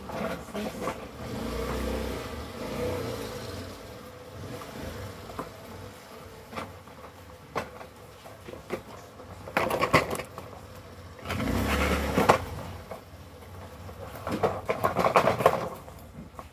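Cardboard packaging being handled: rustling, scraping and scattered knocks as a product box is pulled out of a cardboard carton and its flaps are opened. There are louder bursts of rustling and knocking around two-thirds of the way in and again near the end.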